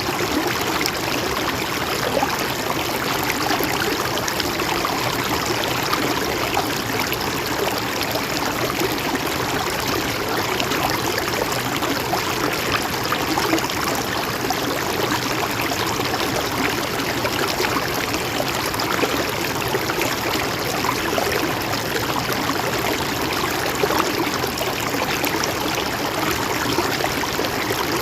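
Mountain stream flowing and trickling over rocks, a steady even rush of water.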